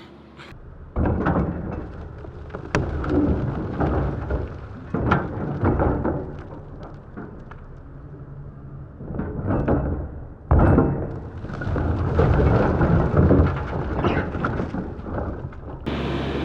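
Heavy demolition equipment tearing down a building: a steady low rumble with repeated sudden crashes and crunches of breaking debris.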